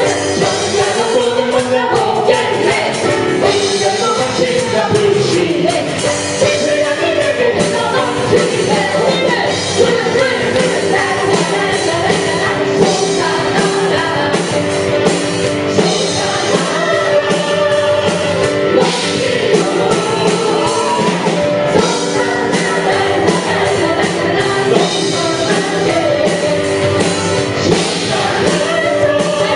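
Live contemporary worship band playing a praise song, with voices singing over drums and amplified instruments.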